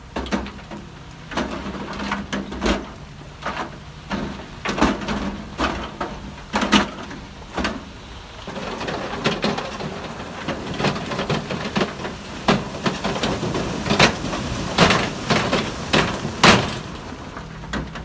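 Heavy machine's diesel engine running under many loud, irregular knocks and clatters of rock and metal, the kind a bulldozer makes shoving and tipping big stones. The knocks come sparsely at first and crowd together over a rising rumble in the second half.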